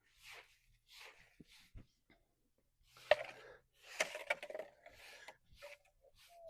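Rhythmic scraping strokes of a tool on concrete, roughly one a second, with a louder cluster of scrapes and knocks in the middle, as leftover mortar is cleaned off a pool's floor.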